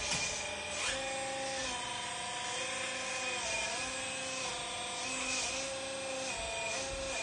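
Small electric motors of a radio-controlled model excavator whining steadily. The pitch steps up and down and dips briefly a few times as the machine's functions are worked.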